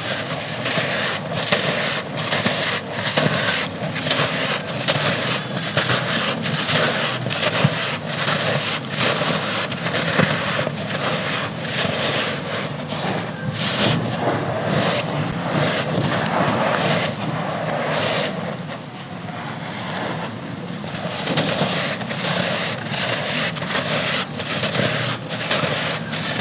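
Chunks of dry red dirt being crushed and crumbled close-up: a dense, irregular crackling and crunching with many sharp snaps, easing a little about two-thirds of the way through.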